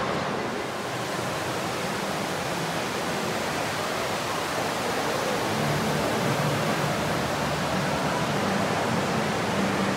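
Steady rush of water splashing in a large fountain.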